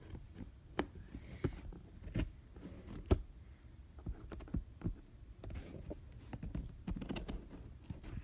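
Scissors and hands working at a package's packaging: scattered sharp clicks, taps and scrapes, the loudest about three seconds in, with a busier run of clicks and scrapes in the second half.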